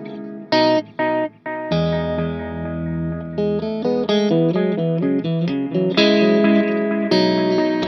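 Electric guitar played through a Sonicake Echo Rain analog-style delay pedal: two short stabbed chords, then ringing chords and single notes with delay repeats trailing behind them.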